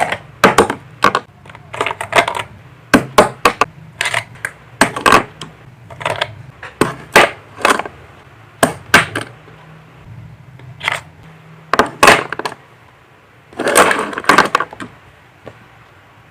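Irregular clicks, knocks and rattles of small hard objects being handled and set down, some in quick clusters and a longer rattle near the end, over a steady low hum.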